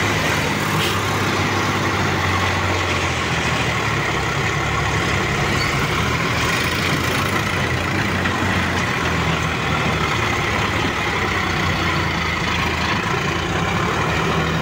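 Sonalika DI 50 tractor's diesel engine running steadily under heavy load while hauling a trolley loaded with mud through a soft field.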